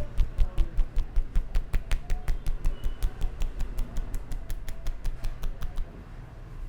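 Rapid percussive head-massage strokes: hands tapping on the head in a fast, even rhythm of about five strikes a second, each a dull thump with a sharp click, stopping about six seconds in.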